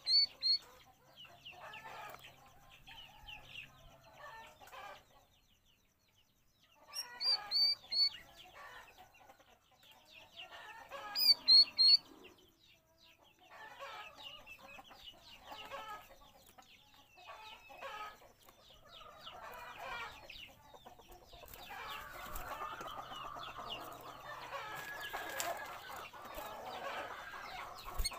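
Cucak rawis bulbul singing in bursts of rapid chattering phrases with a few high whistled notes, separated by short pauses. In the last few seconds the chatter runs on longer and denser, with a flutter of wings near the end.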